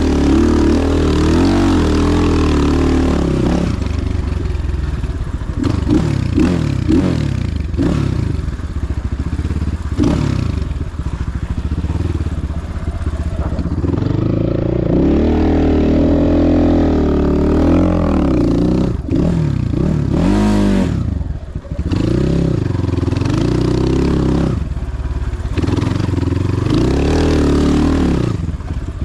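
Motorcycle engine running under load while being ridden, its pitch rising and falling again and again as the throttle is opened and closed and gears change. The engine briefly drops away about three-quarters of the way through, then picks up again.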